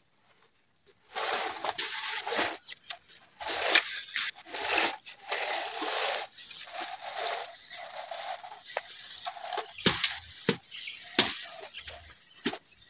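Dry leaves and plant stalks being handled and pushed through, rustling and crunching irregularly, starting about a second in, with several sharp snaps or knocks in the second half.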